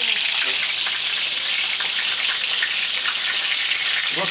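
Breaded pieces frying in a pan of hot oil: a steady, dense sizzle.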